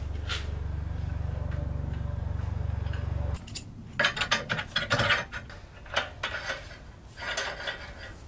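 A steady low hum with fast, even clicking for about three seconds that cuts off suddenly, then bursts of sharp metallic clicks and rattles from the bike rack's ratcheting hardware and lock being worked by hand.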